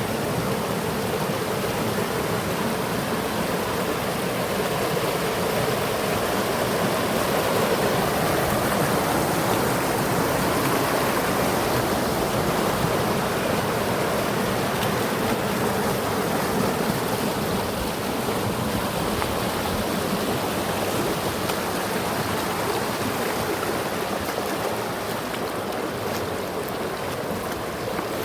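River water rushing steadily, an even, unbroken flow.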